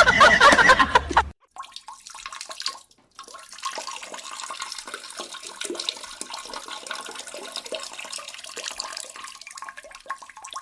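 Water running and splashing, a steady hissing wash with small crackles, after a loud pitched sound that cuts off about a second in.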